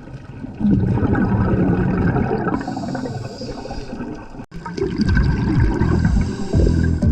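Seawater sloshing and gurgling around a camera held at the water's surface, loud and choppy, breaking off abruptly about four and a half seconds in before the water noise picks up again.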